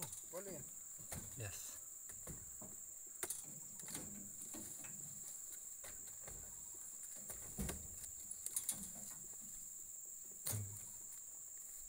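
Several dull thuds as oil palm fruit bunches are heaved by hand onto a truck bed, scattered and irregular, the strongest two near the middle and toward the end. Under them a steady high-pitched insect drone.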